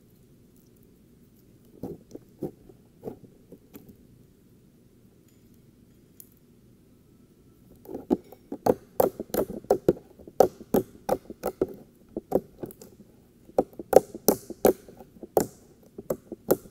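Clicky, bubbly-textured slime being squished and pressed by hand, making sharp clicking pops: a few scattered pops about two seconds in, then a quick, steady run of loud clicks from about eight seconds on.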